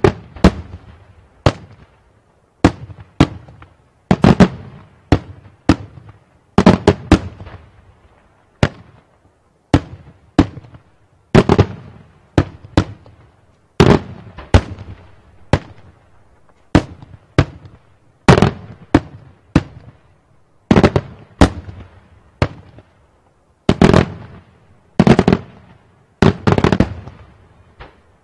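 Daytime aerial fireworks shells bursting in a rapid, irregular series of loud bangs, about one or two a second, each with a short echoing tail.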